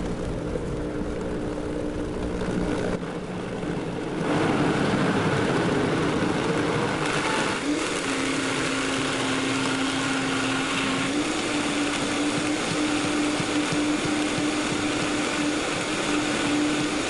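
High-powered blender running, blending a thick raw tomato sauce. It starts at a lower speed and grows louder and noisier about four seconds in as it is turned up toward high. Its steady motor tone dips slightly a little before the halfway point and rises again a few seconds later.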